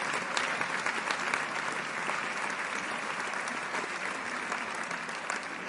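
Audience applauding: dense, steady clapping of many hands, easing off slightly near the end.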